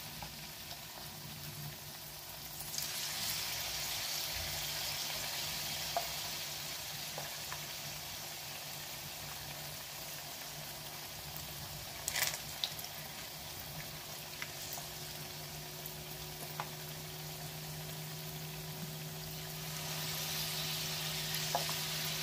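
Battered fritters sizzling in hot oil in a frying pan, a steady crackling hiss that swells louder about three seconds in and again near the end. A few clicks of a wooden spatula against the pan come around the middle, over a steady low hum.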